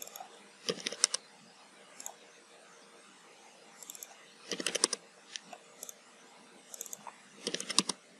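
Clicks of a Logitech B175 wireless mouse and taps on a computer keyboard, in about eight short bursts of a few clicks each.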